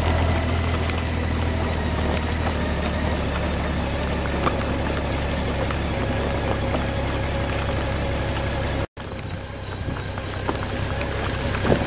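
Motorcycle engine running at low, steady revs with wind and road noise as the bike rolls over a potholed road, with a few light knocks. The sound cuts out for an instant about nine seconds in, then carries on.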